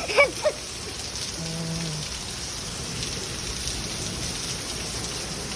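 Heavy storm rain falling steadily, a constant hiss of rain on surfaces.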